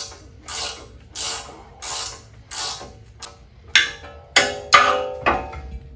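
Ratchet wrench working a bolt on a steel frame, one short burst of clicking with each swing, about one and a half swings a second. In the second half come a few sharper metallic clinks of the wrench against the steel.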